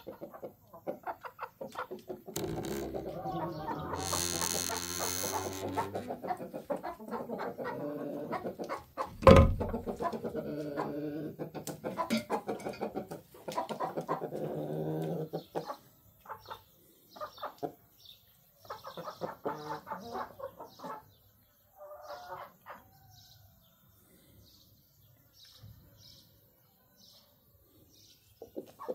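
A flock of chickens, hens and roosters, clucking and calling in long, drawn-out stretches, thinning to scattered short clucks in the later part. A single sharp knock about nine seconds in is the loudest sound.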